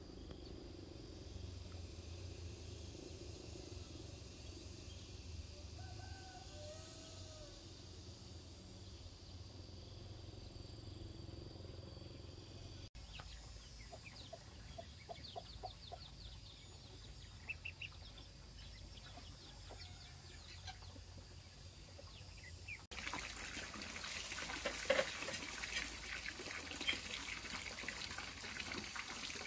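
Chickens clucking now and then over a low background hum. About three-quarters of the way through, after a cut, water runs and splashes steadily.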